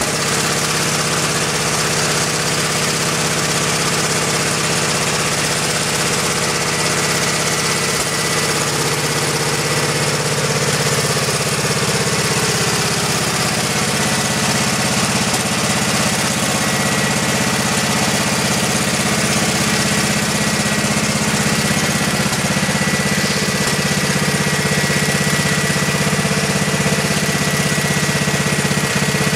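A 1985 Wood-Mizer LT-30 portable band sawmill running: its engine runs steadily, with a thin high whine over it through most of the stretch.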